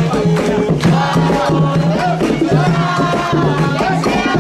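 Voices singing an Umbanda ponto (ritual chant) together, with rattles shaken and drums struck in a steady rhythm.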